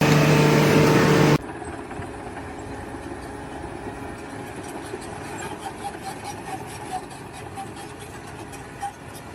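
An engine or machine running: a loud steady hum for about the first second and a half, then quieter steady running with faint ticks.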